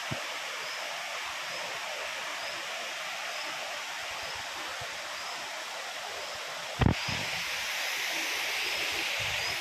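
Steady rushing of a waterfall cascading over rock ledges, with one sharp knock about seven seconds in.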